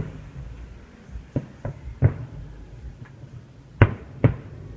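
Fireworks shells bursting in the distance: about five irregular bangs, the two loudest close together near the end.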